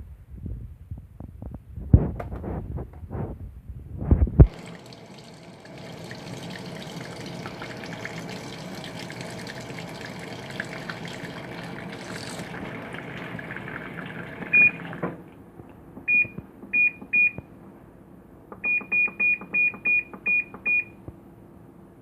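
A ZENSTYLE mini fully automatic washing machine: a few seconds of irregular knocks and clunks, then water running steadily into the tub, cutting off suddenly. The control panel then beeps: a single high beep, three more, and a quick run of about eight, as its buttons are pressed.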